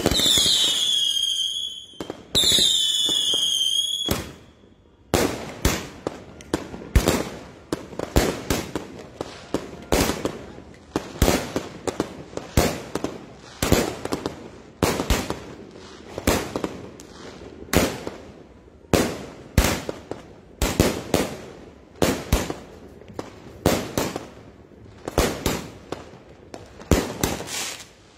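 Multi-shot fireworks cake firing aerial shots: two falling whistles in the first few seconds, then a long run of sharp bangs, one or two a second.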